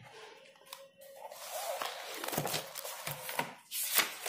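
Paper rustling as pages of a spiral-bound notebook are turned, with a louder rustle near the end.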